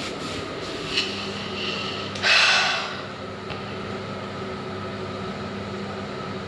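Passenger lift car travelling down with a steady low hum, a faint click about a second in, and a short breathy hiss a little after two seconds.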